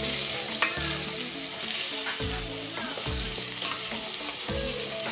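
Chicken pieces sizzling in hot oil in an aluminium pot, stirred with a wooden spatula that scrapes and knocks against the pot, as the chicken skin browns before water is added.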